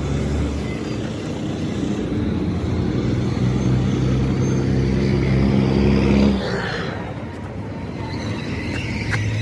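A motor vehicle's engine running close by, growing louder until about six seconds in, then falling away suddenly as it passes.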